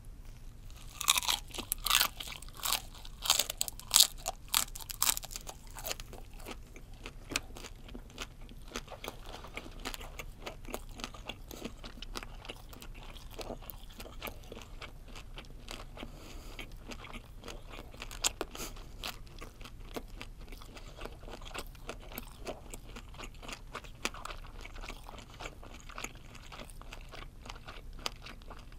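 Close-miked biting and chewing of a fried kuruma prawn: a run of loud, crisp crunches in the first few seconds as it is bitten, then softer, steady crunching and chewing.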